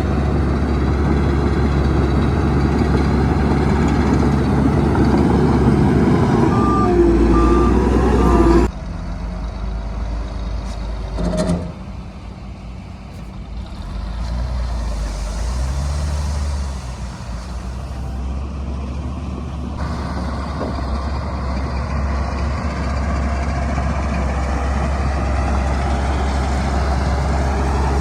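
Heavy diesel engines of a bulldozer and dump trucks running. Three short reversing-alarm beeps sound about seven seconds in, and the engine sound drops abruptly just before nine seconds.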